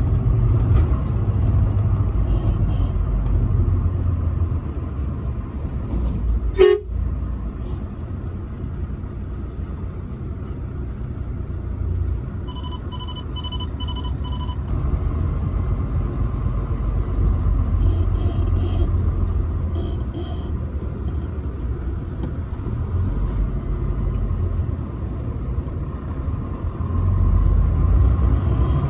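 A truck driving along the road: a steady low engine and road rumble, with a sharp knock about six and a half seconds in. Near the middle, a horn sounds in a quick run of about five short toots, with fainter toots early on and later.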